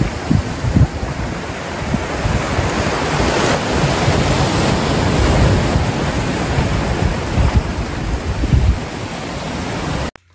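Sea waves breaking and washing over a rocky boulder shore, with wind buffeting the microphone in low gusts. The sound cuts off suddenly near the end.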